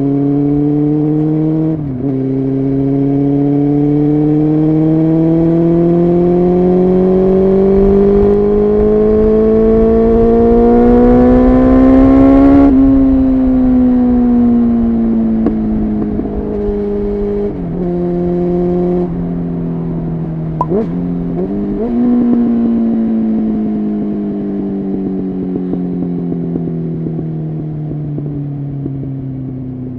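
Honda CBR600F3's inline-four engine pulling hard and steadily up through the revs after a quick gear change about two seconds in. About halfway through it rolls off and the revs sink, with two downshifts and a short throttle blip between them, then it keeps slowing.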